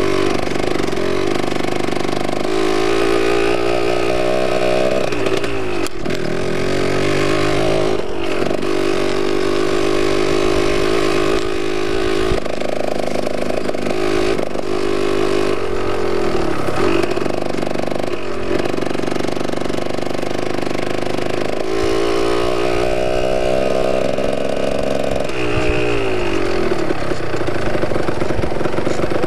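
Yamaha DT125's two-stroke single-cylinder engine being ridden. It revs up and drops back in pitch several times as the throttle is opened and closed.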